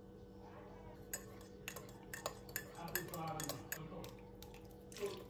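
Cutlery and dishes clinking: a string of sharp, irregular clicks and clinks starting about a second in, over a faint steady hum.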